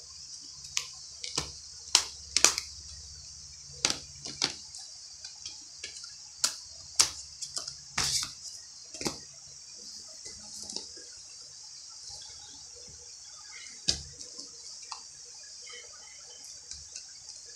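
Plastic Blu-ray cases being handled: a string of sharp clicks and taps as a case is snapped shut and others are picked up, thickest in the first half and sparse after, over a steady high hiss.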